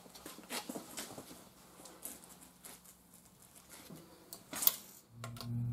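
Faint scattered clicks and metal taps of a torque wrench and socket on a car's lug nuts as they are tightened one after another, with one sharper click near the end. A steady low hum starts just before the end.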